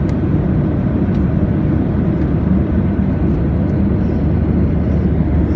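Steady low drone of engine and airflow noise inside the cabin of a Boeing 737-800 in flight.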